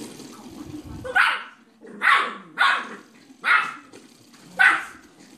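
Boxer puppy barking: five short, sharp barks, each under a second apart.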